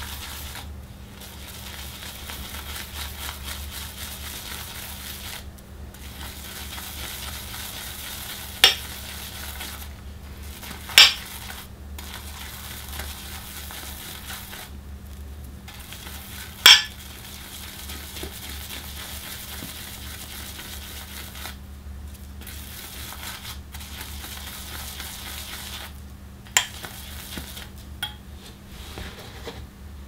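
Shaving brush whisking shaving cream into a lather in a bowl: a steady scratchy swishing in stretches of several seconds with short pauses, and a few sharp clicks, the loudest about nine, eleven and seventeen seconds in.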